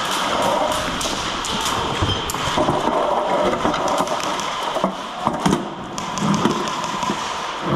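Airsoft game in progress: irregular sharp clicks and snaps of airsoft replicas firing and BBs striking, scattered throughout, over footsteps and gear noise.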